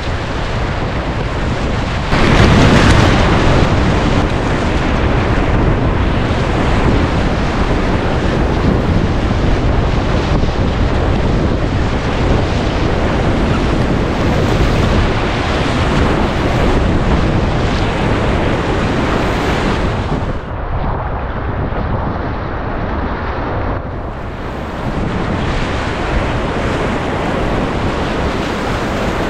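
Loud rushing whitewater of a river rapid, with waves splashing over the bow of a whitewater kayak as it is paddled through, heard close up from the paddler's head-mounted camera. The rush surges about two seconds in and is dulled for a few seconds after the middle.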